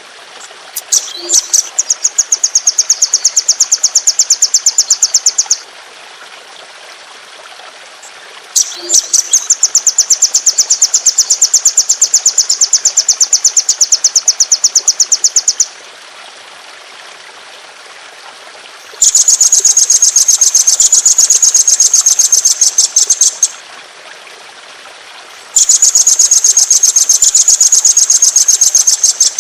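A songbird sings long, rapid, high-pitched rolling trills. There are four runs of several seconds each, with short pauses between them. The first two runs sit a little lower and steadier, and the last two are brighter and sharper.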